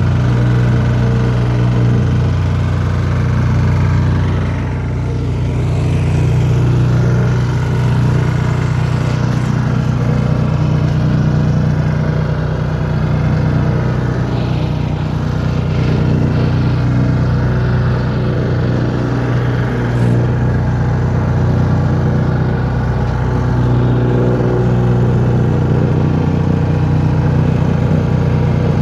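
Wacker Neuson DPU reversible plate compactor running steadily: its diesel engine and vibrating plate working as it compacts the soil of a trench floor.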